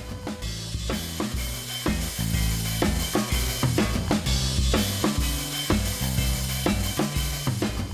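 Intro music: an upbeat track with a drum kit beat and a bass line.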